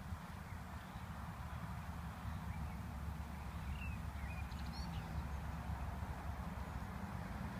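Outdoor ambience: a steady low rumble with light hiss, and a few faint bird chirps about halfway through.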